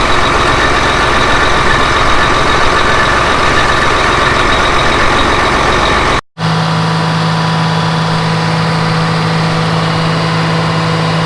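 Case IH 120 tractor's diesel engine running loudly. About six seconds in it cuts off abruptly and resumes as a steadier run with a strong low hum.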